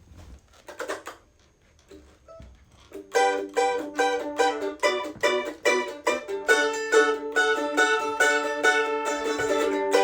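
Mandolin begins playing about three seconds in, a quick steady run of plucked notes and chords, after a few faint knocks and a short rustle.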